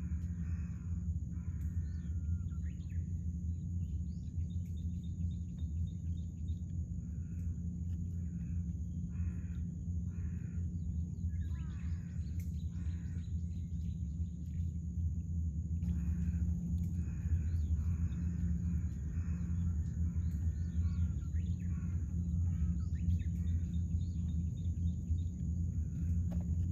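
Outdoor ambience: a steady low rumble and a steady thin high-pitched tone underneath, with groups of short repeated bird calls now and then.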